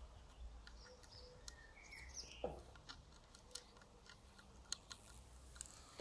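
Quiet outdoor ambience with a low rumble, a few faint bird chirps and scattered small ticks, ending in a sharp click.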